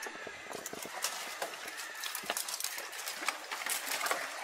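Dry branches and twigs cracking and rustling in a quick, irregular run of snaps, as a person clambers and leans over a tangle of dead wood.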